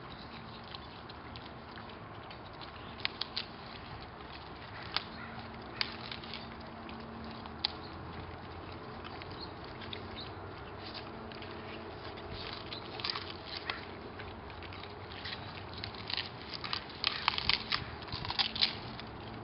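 Two Staffordshire Bull Terriers crunching and chewing cauliflower leaves and stalks, in scattered crisp snaps that come thicker and louder near the end.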